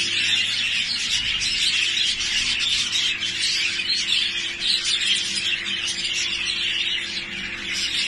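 Budgerigars chattering and chirping together in a breeding room: a dense, unbroken twitter of short high chirps, with a faint steady low hum beneath it.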